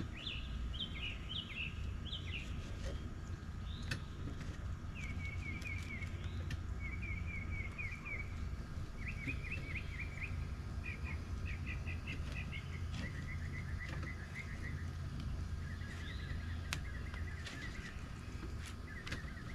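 Songbirds singing in short, repeated chirping trills over a steady low rumble, with a few faint sharp clicks.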